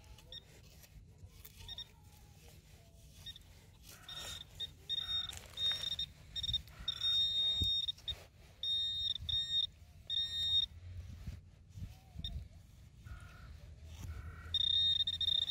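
Handheld metal-detecting pinpointer probe beeping as it is worked through wet sand. Short high beeps at first, then long steady tones about seven seconds in and again near the end, the signal that a metal target is close to the probe tip.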